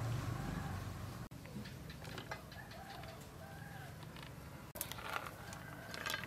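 Domestic chickens clucking in the background: several short calls that rise and fall in pitch. Near the end comes a brief rustle of bean sprouts being handled.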